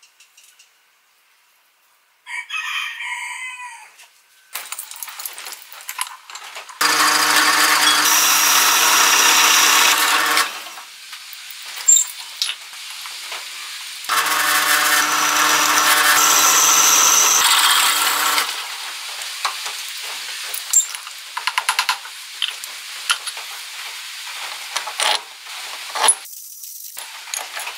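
Drill press bit cutting into a steel disc in two runs of about four seconds each, a steady pitched whine over the grinding of the cut. Between and after the runs there are lighter clinks and knocks of steel parts being handled.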